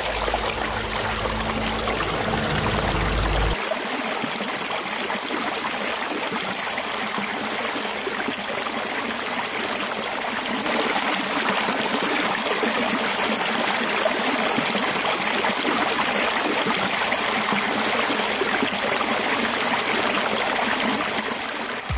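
Water rushing steadily down a narrow channel and splashing around a small homemade water turbine set in the flow. A low rumble underlies the first three seconds or so, and the rush grows a little louder about halfway through.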